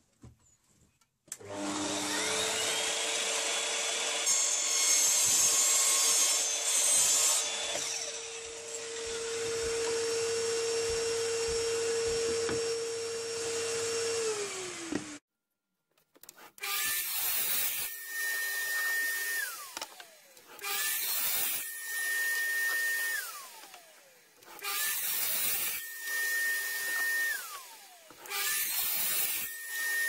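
Evolution mitre saw cutting MDF shelves to length. It first runs for about thirteen seconds, winding up, holding a steady hum and spinning down. After a short pause come four shorter cuts about four seconds apart, each ending with the blade spinning down.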